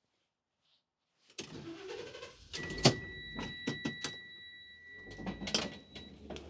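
Delivery truck sounds: several knocks and clicks, and a steady high electronic tone held for about three and a half seconds. A low engine hum comes in near the end.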